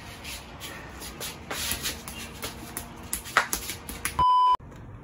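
Scattered light clicks and rustles of handling and movement, then near the end a loud, steady electronic beep about half a second long that cuts off abruptly.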